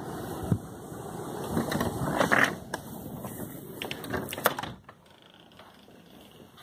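Handling noise as a phone is carried through a door into a house, with rubbing and several sharp clicks of the door and its latch. The outdoor noise drops away abruptly just before five seconds in, leaving a quiet room.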